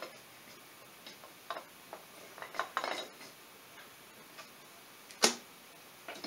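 Scattered light metallic clinks and taps of hardware being handled while a cylinder head is fitted onto its studs, with a cluster of clicks around the middle and one sharp, louder clank about five seconds in.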